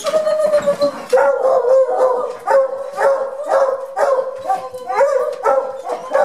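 Dogs barking and yelping in excited greeting at a door, short calls coming about twice a second after a drawn-out howling cry at the start.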